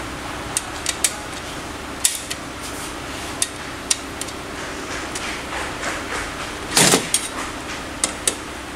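Screwdriver clicking and tapping against the metal housing of a copier's primary charging (corona wire) assembly as its screws are undone, with a louder knock about seven seconds in. A steady machine hum runs underneath.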